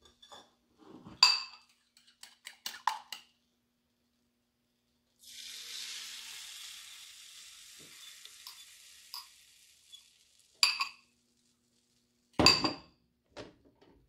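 Banana-and-egg pancake batter sizzling as it is poured into a hot buttered nonstick frying pan: a hiss that starts suddenly about five seconds in and fades away over the next few seconds. Sharp clinks of a fork and utensils against the bowl and pan come before and after, with a heavier knock near the end.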